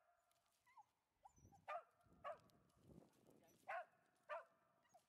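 A dog barking in short, sharp single barks, in two pairs about two seconds apart, as it waits for a stick to be thrown into the water.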